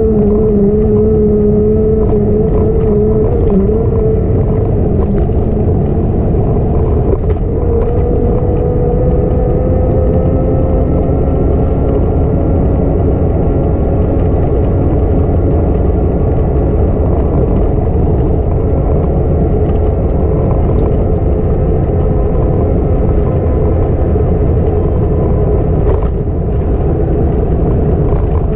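Steady wind rush and low rumble while riding along a path, with a continuous whine that drifts slowly up and down in pitch, rising a little about a third of the way in.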